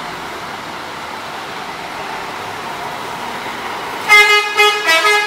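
A tour coach's multi-tone "telolet" horn plays a quick run of short toots at changing pitches, starting about four seconds in, after a steady background hiss.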